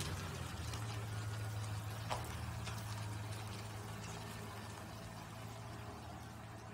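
Pickup truck engine running at low speed as the truck pulls slowly away, a steady low hum that fades gradually. A single short click about two seconds in.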